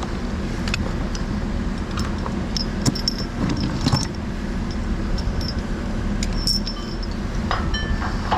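Steel bolts, washers and tools clinking and tapping against metal ride-tower segments as hardware is fitted, a few sharp ringing clinks standing out, over a steady low machine drone.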